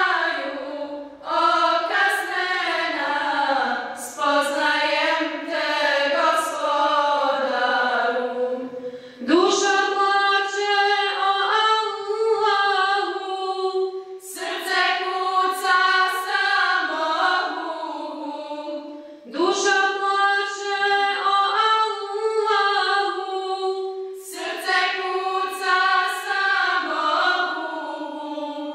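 A choir singing a Bosnian Muslim devotional song (ilahija), in long held phrases, a new one starting about every five seconds.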